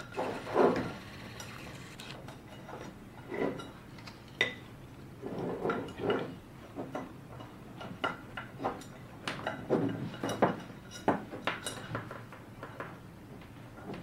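Irregular clicks, knocks and light rattles of hands handling a PTZ dome camera's plastic housing, cables and small tools on a wooden table.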